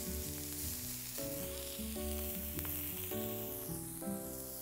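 Meat burger patties sizzling on a hot ridged grill pan, a steady frying hiss. Soft background music of held notes plays under it.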